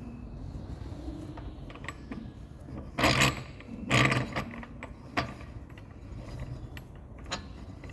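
Metal clanking and clicking of a centre-lock wheel being fitted onto its splined hub by hand, with two louder clanks about three and four seconds in and lighter clicks in between.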